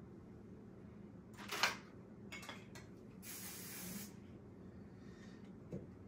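Aerosol spray can sprayed onto a section of wig hair: a short, loud spray burst about one and a half seconds in, then a longer spray lasting about a second, with a few small clicks in between.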